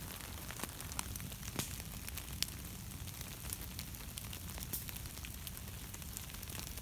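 Scattered water drops ticking irregularly on wet leaves, over a faint steady hiss and low rumble.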